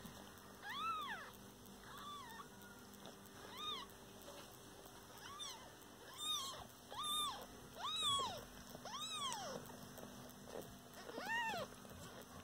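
A kitten mewing repeatedly: about ten short, high-pitched mews, each rising and then falling in pitch.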